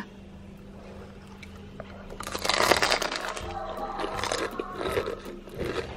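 Crunching of a bite into and chewing of a deep-fried shrimp ball coated in crisp shredded wonton wrapper, a run of sharp crackles starting about two seconds in. Soft background music plays underneath.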